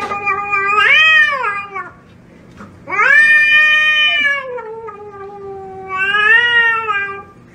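A cat yowling in two long, drawn-out calls. The first swells and rises in pitch about a second in. The second starts about three seconds in, dips, then rises again before fading near the end. These are defensive warning yowls at a hand reaching toward it.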